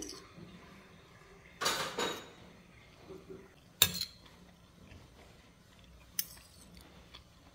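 Metal spoon and fork scraping and clinking on a plate while scooping fried rice: a short scrape a little under two seconds in, a sharp clink about two seconds later, and a lighter clink near six seconds.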